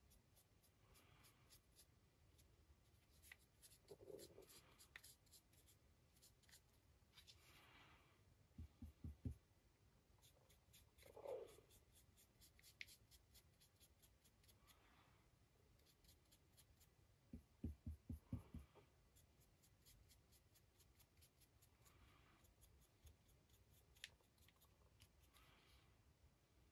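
Near silence: faint scratching of a fine paintbrush working paint onto a resin 3D-printed figure held in the hand. Twice, a short quick run of soft low knocks, from handling.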